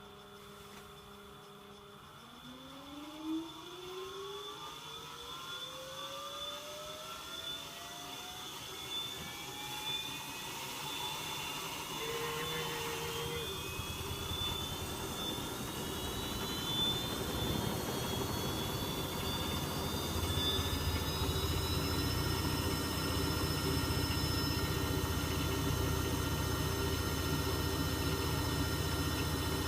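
Electrolux W455H commercial washing machine spinning its drum up: a motor whine that rises steadily in pitch from about two seconds in and levels off about twenty seconds in, with a low rumble of the drum growing louder underneath as it approaches its high extraction speed.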